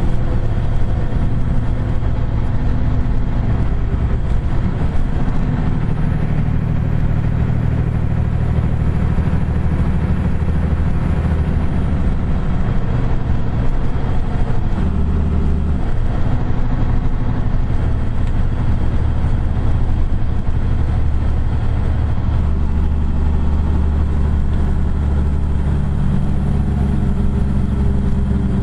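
In-cab engine and road noise of a 2009 Kenworth T800 semi truck driving on the highway: a steady low drone whose engine note shifts about halfway through.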